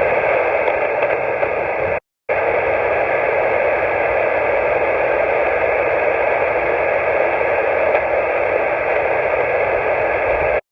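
Steady hiss from a radio receiver's speaker while listening after a CQ call, with no station answering. The hiss cuts out briefly about two seconds in, then resumes unchanged.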